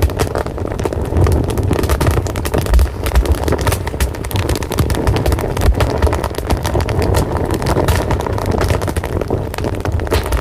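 A fire burning with a constant low rumble and dense, irregular crackles and pops.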